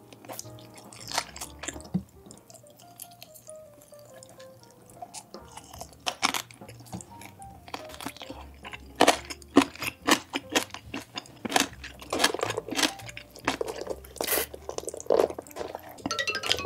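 Close-miked chewing and crunching of food, sparse at first and much busier from about six seconds in, over quiet background music.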